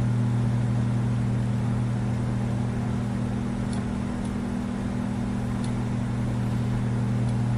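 A steady low hum of a few even tones under a layer of hiss, with a few faint ticks in the middle.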